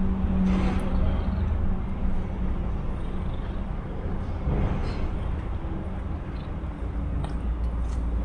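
Steady low background rumble, with a low hum that fades out after about two seconds.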